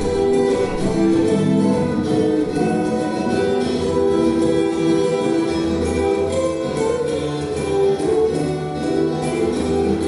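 Two steel-string acoustic guitars playing an instrumental duet, a picked melody over chords and a bass line.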